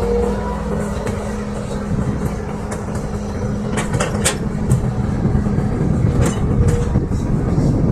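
Excavator's diesel engine running steadily, with a few sharp metallic clanks about halfway through.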